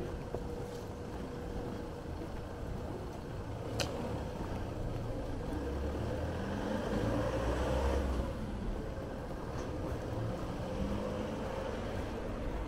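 Street traffic: a motor vehicle passing, its low rumble swelling about seven to eight seconds in, with a single sharp click about four seconds in.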